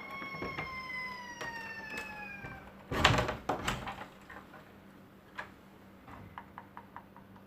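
A cat's long, drawn-out yowl lasting about three seconds, its pitch slowly falling. It is followed by a loud knock or clatter about three seconds in, and a few faint ticks later on.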